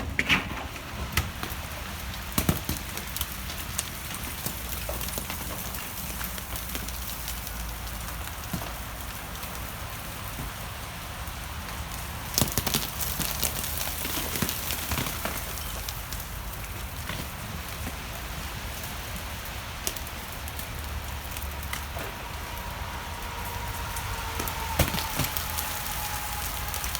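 Meltwater from thawing snow and ice dripping and pattering steadily, with many scattered sharper drip ticks.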